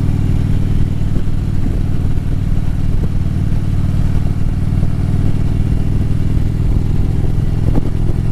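Harley-Davidson Road Glide's V-twin engine running steadily under way at an even speed.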